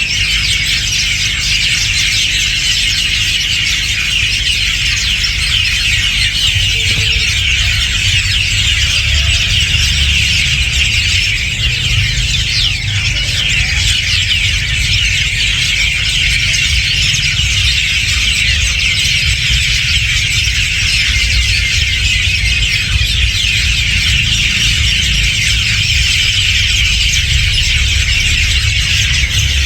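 A large flock of birds chattering together at an evening roost: a dense, unbroken mass of high chirps and squeals from hundreds of birds, over a low steady rumble.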